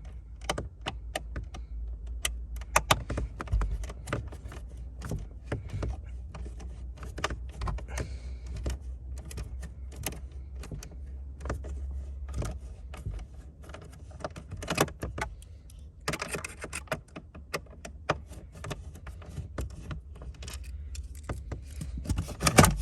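Irregular clicks, taps and light rattles of hands and a Torx driver working loose plastic interior trim and screws in a Mini Cooper R56, over a steady low hum.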